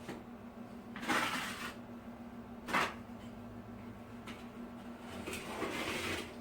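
A few short scraping and rustling handling sounds: one about a second in, a sharper brief one near the middle, and a longer one near the end. A steady low hum runs underneath.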